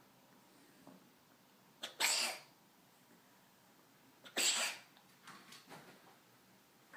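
A cat coughing: two short coughs, one about two seconds in and another about two and a half seconds later.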